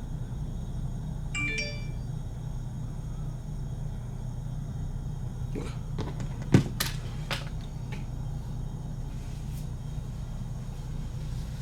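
Steady low rumble with a brief electronic ding-dong chime about a second and a half in, then a few sharp knocks and clicks around six to seven seconds in, the loudest about six and a half seconds in.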